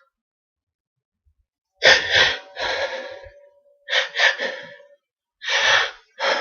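A man with a heavy cold in a fit of sneezing and coughing. After a short silence, four or five sharp, explosive bursts of breath come about a second apart, starting about two seconds in, with a wheezy whistle in the breath after the second one.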